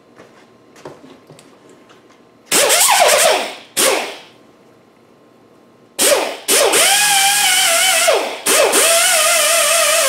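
Air-powered 20,000 RPM die grinder with a very fine abrasive disc, run against an alloy wheel: a high whine over a hiss of air. A burst about two and a half seconds in whose pitch rises and falls, a short blip just after, then from about six seconds a longer run of about four seconds, broken twice by brief drops, its whine wavering slightly.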